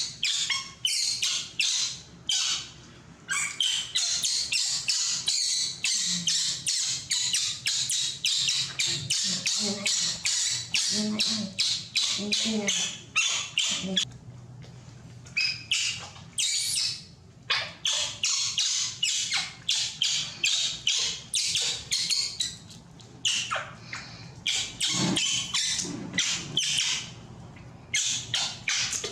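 Baby macaque shrieking and crying over and over, short high-pitched calls coming about three a second, with one longer rising squeal about halfway through.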